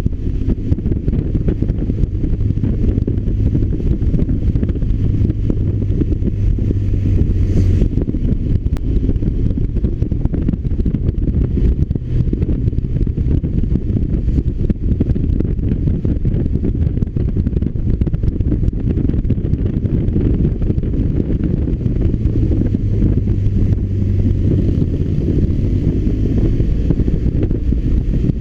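BMW R1200RT's boxer-twin engine running while the motorcycle is ridden, with heavy wind rumble on the microphone. The low engine note stands out more near the start and again toward the end.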